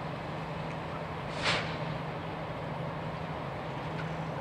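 Coal freight train at a loading tower: a steady low hum over background rumble, with one short hiss about a second and a half in.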